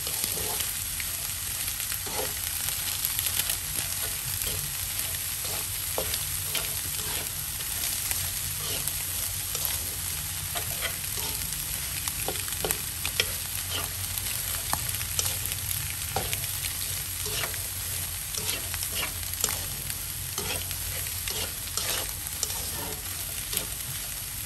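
Chopped cauliflower, carrots and egg sizzling in a nonstick wok, stirred continuously with a plastic slotted spatula that makes frequent short scrapes and taps against the pan.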